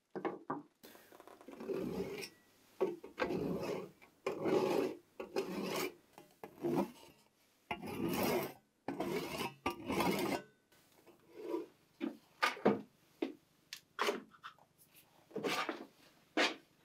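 Fine-toothed hand saw cutting a small block of wood in repeated back-and-forth strokes, with short pauses between runs of strokes.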